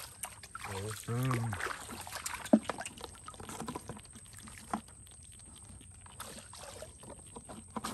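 Shallow muddy water trickling and splashing while a mud crab is handled and lifted from the flat. A short voiced sound comes about a second in and a single sharp knock about two and a half seconds in, followed by fainter ticks and drips.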